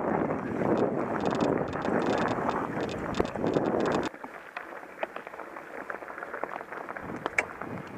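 Mountain bike rolling over a gravel trail: wind buffeting the microphone and a fast clatter of small clicks from the tyres and bike. About four seconds in the sound drops suddenly to a quieter crunch of tyres on dirt with scattered rattles and one sharper click near the end.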